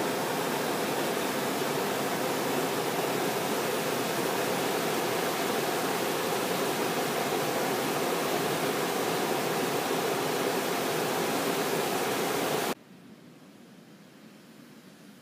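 Steam and volcanic gas jetting from a sulphur-crusted fumarole: a loud, steady rushing hiss. About 13 seconds in it cuts off suddenly to a much fainter hiss.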